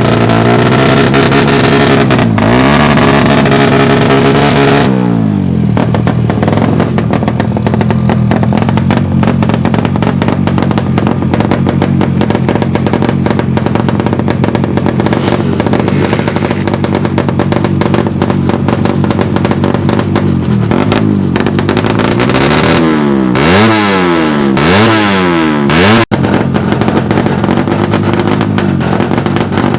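Suzuki Satria FU drag bike's 147 cc engine revving hard, its pitch held high most of the time, with a dip and climb early and several quick up-and-down blips near the end. The sound drops out for an instant about three-quarters of the way through.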